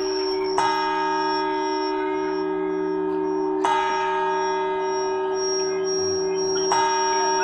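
The Puerta del Sol clock bell striking the twelve midnight chimes (campanadas), heard from a television broadcast: three strikes about three seconds apart, each one ringing on into the next.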